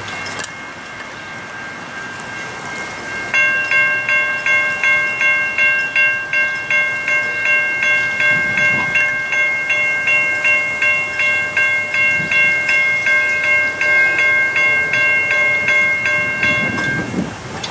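Railroad grade-crossing warning bells start ringing about three seconds in, with rapid even strikes, about two to three a second, over a steady ringing tone. They stop shortly before the end. The bells signal an approaching train.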